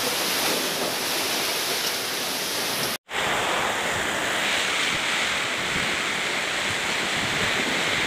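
Heavy rain pouring down on corrugated metal roofs in a windstorm, a steady dense rush of noise with wind buffeting the microphone. The sound cuts out for an instant about three seconds in, then carries on.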